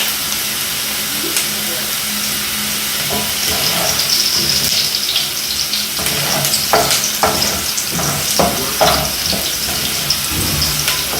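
Onions frying in hot oil in a pan with a steady sizzle. From about halfway they are stirred, a few short scraping strokes over the sizzle.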